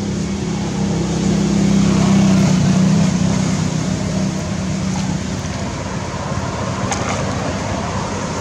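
A motor vehicle's engine hum, loudest about two to three seconds in and fading away by about five seconds, over a steady background hiss.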